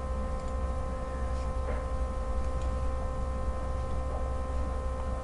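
Steady electrical hum with a set of faint steady whining tones above it, with a few faint ticks.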